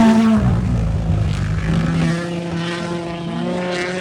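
Rally car engine running hard at high revs. Its pitch drops just after the start, then holds a steady note that slowly creeps upward.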